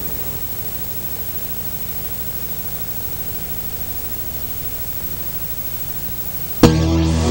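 Steady hiss and faint low hum of VHS tape playback with no programme sound. About six and a half seconds in, a sharp pop cuts in and loud music begins.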